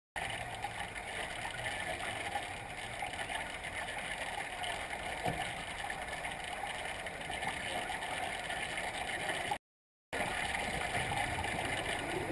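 Steady underwater noise of a swimming pool picked up by a submerged camera, a gurgling hiss of water. It cuts out for about half a second near the end, then resumes.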